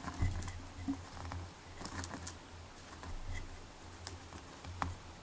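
Faint, scattered small clicks and rubbing sounds of fingers handling nylon monofilament fishing line as the tag end is wrapped around the main line, over a low steady hum.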